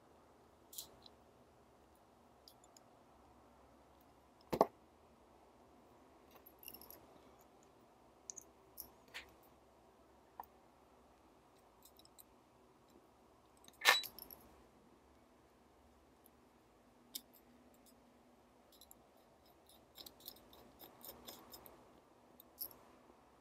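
Small metallic clicks and taps of tweezers and parts against a stripped Leica M3 camera body as its shutter speed control module is reassembled: scattered light ticks, two sharper clicks about 4.5 and 14 seconds in, and a quick cluster of small clicks near the end.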